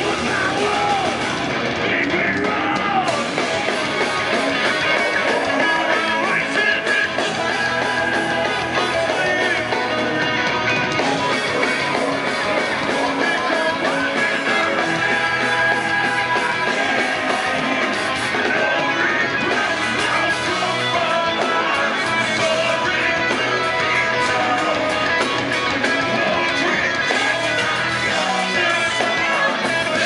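Melodic death metal band playing live: distorted electric guitars, bass and drums at full volume with a singer's vocals over them, heard from the crowd.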